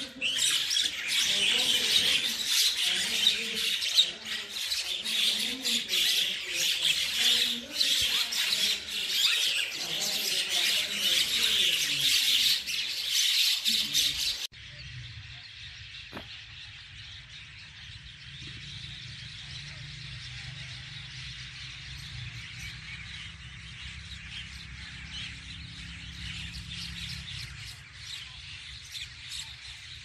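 A flock of common mynas chattering and squawking loudly, many calls overlapping. About halfway through, the sound cuts abruptly to a quieter, more distant chorus of bird chatter over a low steady rumble.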